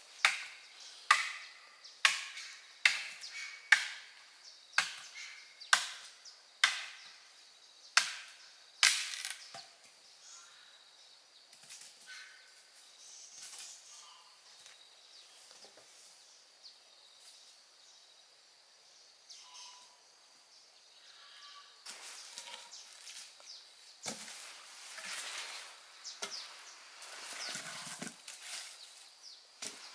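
Wood being chopped with a blade: about ten sharp strokes roughly a second apart over the first nine seconds, then quieter scattered rustling and small knocks, busier again near the end.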